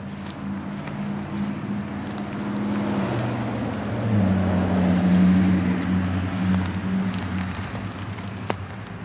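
A motor vehicle's engine hum that drops in pitch and grows louder about four seconds in, then eases off. A single sharp click near the end.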